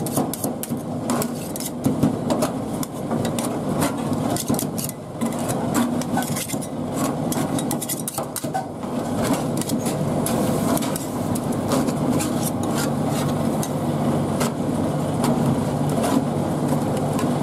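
Metal spatulas chopping and scraping tomato and milk cream on a cold aluminum pan: quick, irregular clicking taps, thickest in the first half, over a steady low hum.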